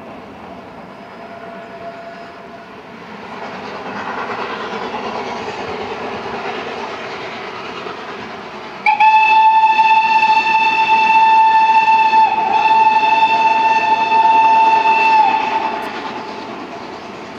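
Eritrean Railway steam train climbing, its running noise growing from about three seconds in. Near the middle the locomotive sounds one long, loud whistle of about seven seconds, its pitch dipping briefly halfway through, before the train noise fades again.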